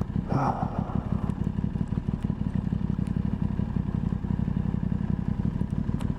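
Aprilia Tuono 660's parallel-twin engine running steadily at cruise, heard through a helmet-mounted mic with wind buffeting. There is a short rush of noise just under a second in.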